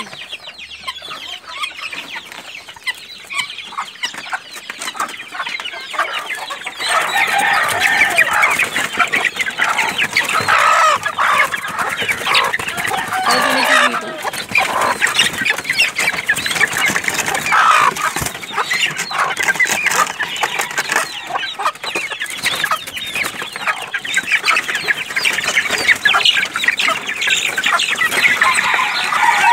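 Chickens clucking, the calls growing louder and busier about seven seconds in and continuing as a dense stretch of clucks.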